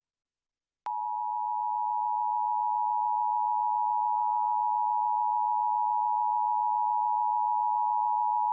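Emergency Alert System attention signal: the steady two-tone alarm of 853 Hz and 960 Hz sounded together, starting abruptly about a second in after a moment of silence. It marks the start of an EAS message, here a Required Monthly Test.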